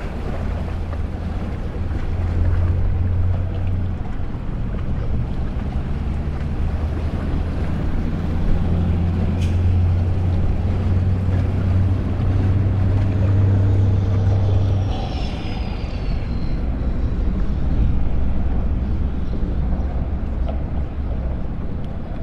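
A low, steady engine drone over a noisy haze of wind on the microphone, loudest from about two seconds in until about fifteen seconds, with a lower drone a few seconds later.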